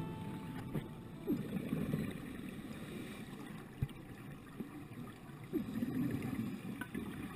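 Muffled underwater noise from a camera in an underwater housing, with two bursts of bubbling about four seconds apart, typical of a scuba diver exhaling through a regulator. A single sharp click comes about halfway through.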